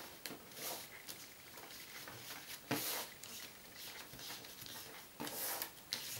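Glossy advertising paper being rolled by hand around a wooden skewer on a table: a few soft paper rustles, the loudest about three seconds in.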